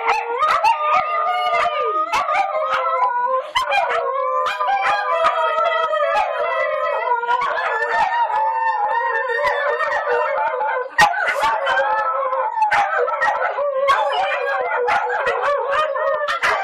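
Several Shetland sheepdogs howling together, their long wavering howls overlapping at different pitches, with a few short sharp clicks among them.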